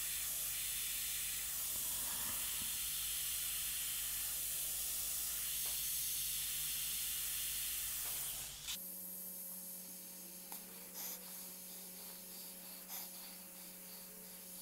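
Iwata airbrush hissing steadily as it sprays paint, cutting off abruptly a little over halfway through; after that only a faint steady hum and a few light ticks.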